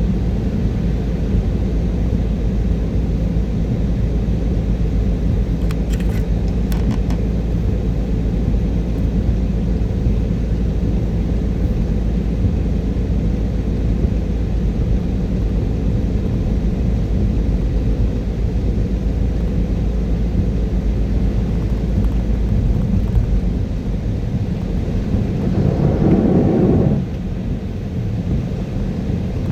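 Car driving on a wet motorway, with steady low road and engine rumble. A few faint clicks come about six seconds in, and a louder swell builds around 25 seconds and cuts off suddenly a couple of seconds later.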